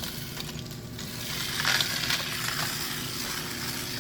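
Battery-powered Trackmaster toy train engine running on plastic track: a steady motor whir with wheel rattle, getting louder about a second in.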